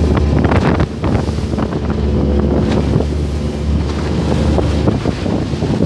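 Motorboat running over choppy water, with heavy wind buffeting the microphone. The low rumble drops off about five seconds in.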